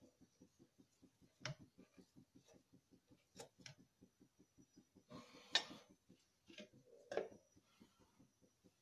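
Faint, quick, regular ticking at about five or six a second, with a few sharp clinks of a steel ladle against an aluminium kadai and one short scrape about five and a half seconds in, the loudest sound.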